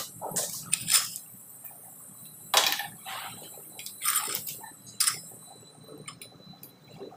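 A handful of short scrapes and rustles as a white PP-R pipe and fitting are handled and pushed together during socket fusion, coming about a second apart and thinning out near the end.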